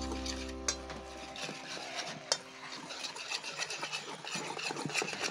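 Wire whisk stirring dry flour in a steel bowl, with irregular scraping and clicking of metal on metal. A held music chord fades out over the first second and a half.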